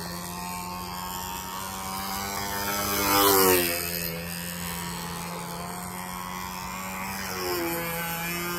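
Radio-controlled model airplane's motor and propeller droning steadily in flight. About three seconds in the plane passes close, louder, with the pitch dropping as it goes by.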